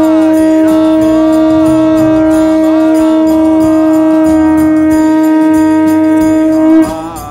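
Conch shell (shankha) blown in one long, loud, steady note that breaks off near the end, sounded to open the morning arati.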